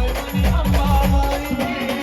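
Maharashtrian band music: a quick run of deep drum strokes, each dropping in pitch, under a held melody line, with shaker-like percussion.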